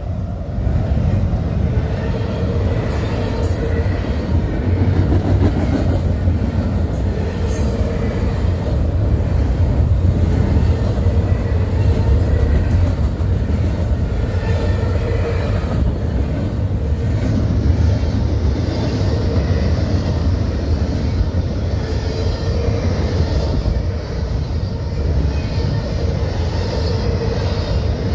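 CSX double-stack intermodal container train rolling past at speed: a loud, steady rumble and rattle of the well cars' wheels on the rails.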